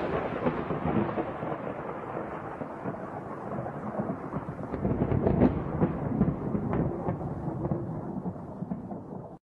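A long roll of thunder: a sharp crack at the start, then continuous rumbling with a few sharper cracks in the middle. It cuts off abruptly just before the end.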